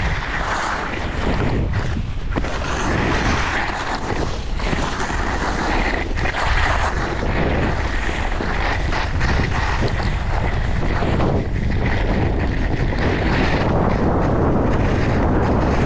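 Wind rumbling on an action camera's microphone during a fast ski descent, with the hiss and scrape of skis on packed groomed snow that swells and eases with each turn.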